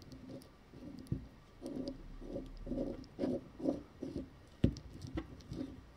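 Hand-handling noise of small steel bicycle-hub parts: soft rubbing and scraping as the outer bearing cone is turned onto the threaded axle of a 1920s NSU hub, with a few small clicks, the sharpest a little over two-thirds of the way through.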